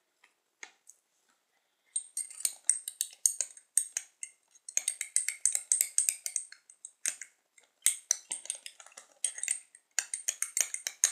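A metal coffee spoon stirring cream in a small glass jar, with rapid clinking and scraping against the glass. It starts about two seconds in and goes on with brief pauses.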